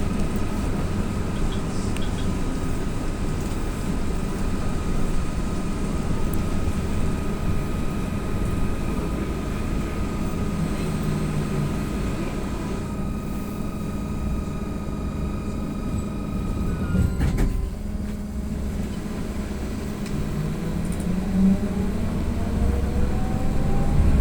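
Ride inside an AKSM-321 trolleybus: a steady rumble under a high electric whine from the traction drive. A little past the middle the whine fades out and there is a brief knock. Near the end rising whines return as the trolleybus speeds up.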